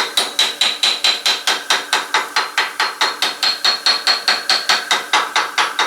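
Rapid, even metallic tapping on a zero-turn mower's caster wheel hub, about five strikes a second, each with a short ringing tone that rises slightly in pitch in the second half.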